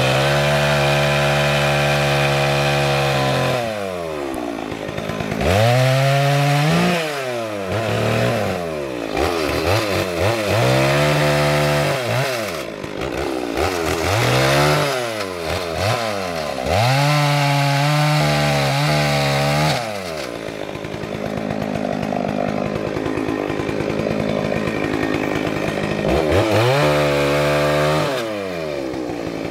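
Small two-stroke chainsaw cutting through the limbs of a felled tree. It is revved up and down over and over, holding at full speed for a few seconds while in the cut and dropping back between cuts, with a lower, rougher stretch a little past the middle.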